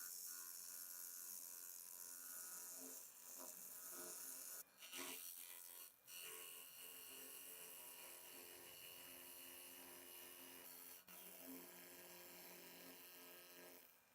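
Faint, steady buzz of a small electric motor, broken by a few abrupt short breaks.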